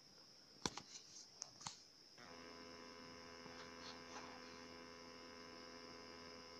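A few quick small plastic clicks and snaps as the back cover of a Samsung smartphone is pried off. About two seconds in, a faint steady electrical hum starts and carries on.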